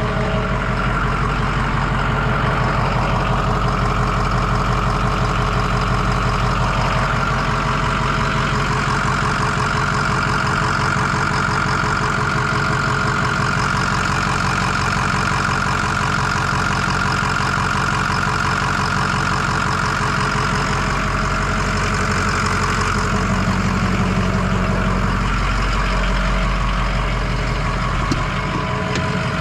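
Ford 6.0 liter Power Stroke V8 turbo-diesel idling steadily, with the air conditioning on high while the system is charged with R-134a refrigerant.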